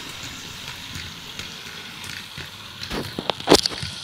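H0 model locomotive running on track with a steady whir and light clicking from its wheels. About three seconds in comes a short burst of sharp clicks and clatter as it meets and couples onto 3D-printed freight wagons loaded with metal nuts.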